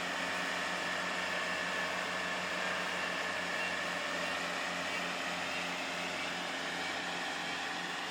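Kubota five-row combine harvester running steadily, a constant engine drone under a loud whirring hiss of the harvesting machinery.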